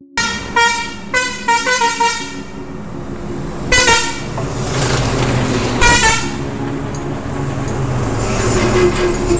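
Heavy truck's air horn honking: several short blasts in the first two seconds, then two more about four and six seconds in, with the truck's diesel engine rumble growing louder as it approaches.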